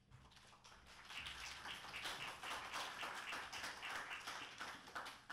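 Audience applauding: many hands clapping, swelling about a second in and dying away near the end.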